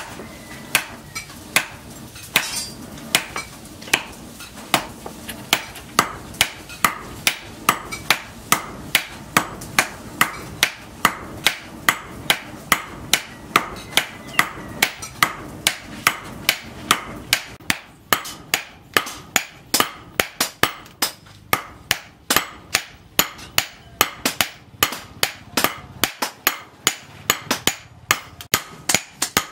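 Hand forging: hammers striking red-hot steel on an anvil, blow after blow in a steady rhythm. The blows come quicker in the last third.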